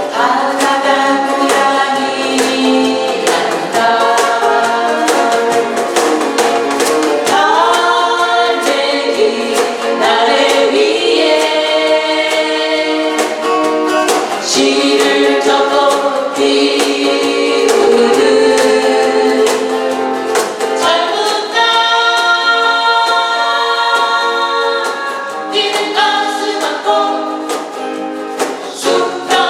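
A group of voices singing a song together over strummed acoustic guitars, with a steady strumming beat.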